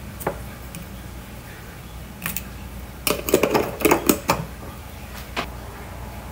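Clicks and clatter of a glass jar, its lid and a sauce bottle being handled on a tiled countertop, with a quick run of rattling clicks about three seconds in and a last single click near the end.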